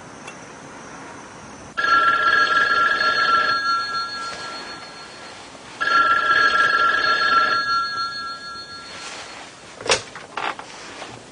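Telephone ringing twice, each ring about two seconds long with the bell fading after it, then a short click about ten seconds in.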